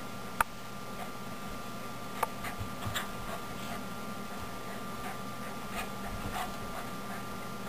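Soft scattered taps and scuffs of a small dog's paws moving on carpet and floor as it fetches a toy, with one sharp click about half a second in, over a steady faint hum.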